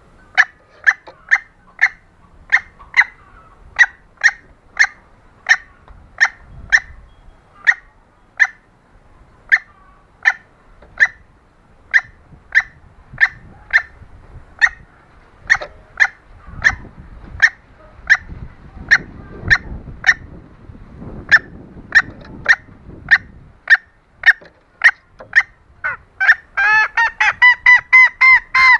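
Female green junglefowl calling: a long run of short, sharp notes, roughly one or two a second. Near the end they break into a quicker, louder run of fuller-toned calls.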